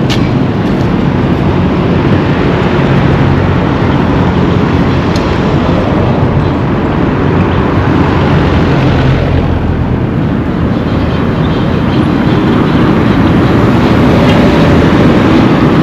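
Steady rumble of road traffic, vehicle engines running.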